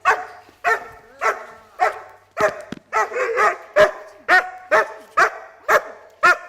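German Shepherd barking repeatedly and steadily, about two sharp barks a second, during protection bite work.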